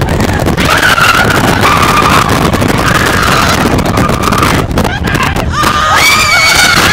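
Wind buffeting the microphone on a moving roller coaster, with riders screaming in several long held yells; the loudest scream comes near the end.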